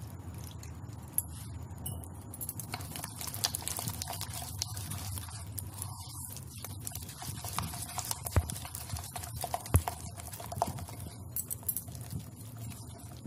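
A hand beating thick gram-flour (besan) batter in a bowl, with irregular wet slaps and squelches.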